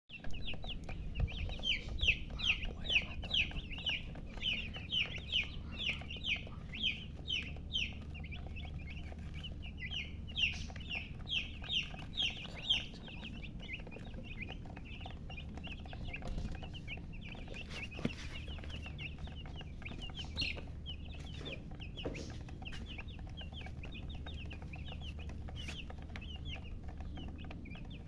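Baby chicks peeping: a run of short, high, downward-sliding peeps about two a second, loudest over the first dozen seconds, then softer peeping that carries on.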